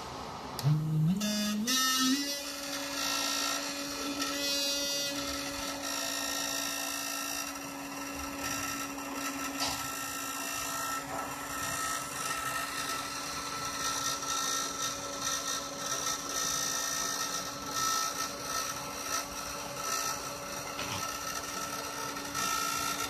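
Rotary tool serving as the spindle of a homemade CNC engraver switched on, its motor spinning up with a rising whine over about two seconds, then running at a steady high speed. The machine's stepper motors, salvaged from a laser printer and a DVD drive, buzz briefly about a second in and again about four seconds in as the axes move.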